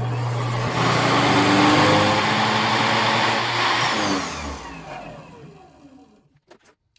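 DC treadmill motor with a flywheel spinning up to full speed with a loud whir. About four seconds in it is braked electrically through a bank of braking resistors, and its pitch falls until it stops about six seconds in.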